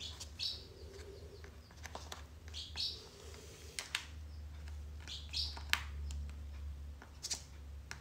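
Crow pecking at kibble in a plastic bowl: a handful of sharp, irregular clicks of beak on food and bowl, with a few short, high calls from the bird.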